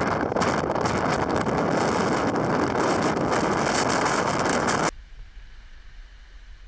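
Strong wind buffeting the microphone over rough, breaking sea, a loud steady rush that cuts off suddenly about five seconds in, leaving a much quieter low rumble.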